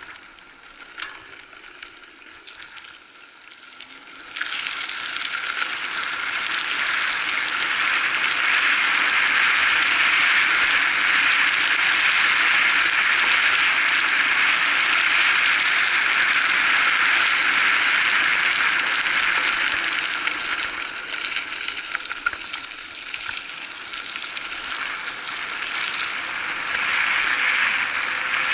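Electric bike's tyres rolling over a dirt-and-gravel path at speed, a steady hiss that gets abruptly louder about four seconds in and eases for a few seconds past the middle.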